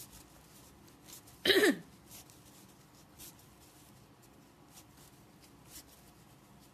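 Faint rustling and small clicks of fabric and satin ribbon being handled as the ribbon is fed through a bag's drawstring channel. A single short voice sound falling in pitch comes about a second and a half in and is the loudest thing heard.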